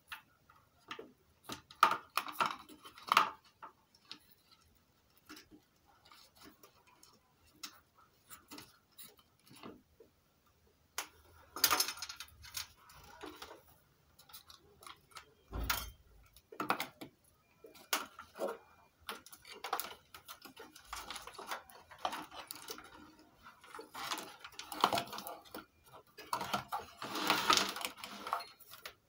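Irregular small clicks, taps and rustles of hands handling wires, plug connectors and plastic circuit-board parts, with a dull knock about halfway through and a busier patch of rustling near the end.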